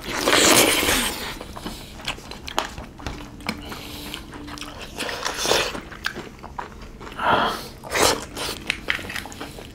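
Chewing and wet mouth noises of people eating rice and smoked pork chagempomba by hand, with a louder burst in the first second and a few shorter ones later.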